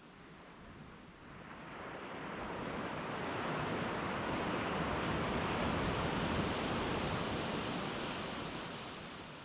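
Ocean surf on a beach: a wave breaking and washing up the shore, its rush building over a few seconds and then slowly fading.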